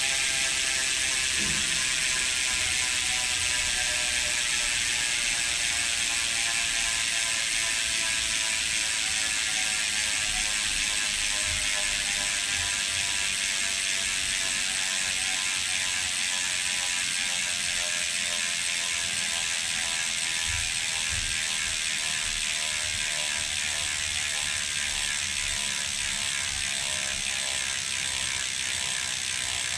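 Hope Pro 4 rear hub freewheeling: the pawls give a continuous buzz as the wheel spins, slowly falling in pitch as the wheel coasts down.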